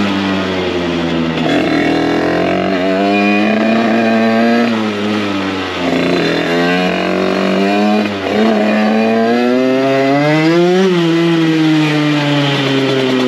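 Derbi 50cc two-stroke motorcycle with a 70cc Metrakit Pro Race kit and KRM silencer, ridden hard: the engine note climbs and drops again and again as the throttle is worked, peaking about eleven seconds in before falling back. It runs with an open intake and no air filter, which the rider finds makes it not great.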